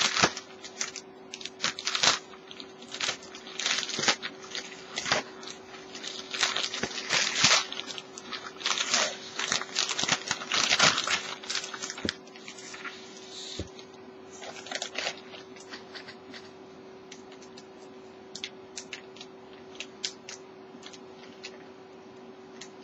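Plastic poly mailer bag being torn open and crinkled by hand, with a bubble-wrapped package pulled out of it: irregular bursts of rustling and crinkling, dense for about the first fifteen seconds, then only sparse light rustles and clicks.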